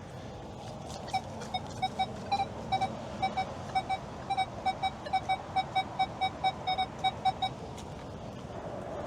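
Metal-detecting pinpointer beeping in short, same-pitched pips, about three a second, from about a second in until near the end, while it is held on a buried coin target.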